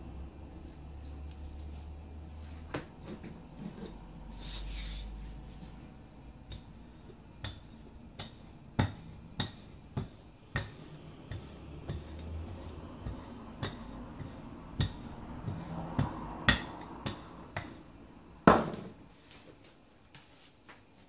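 A wooden rolling pin knocking and rolling over croissant dough and its butter sheet on a floured work table, making a run of sharp, irregular knocks. The loudest knock comes near the end.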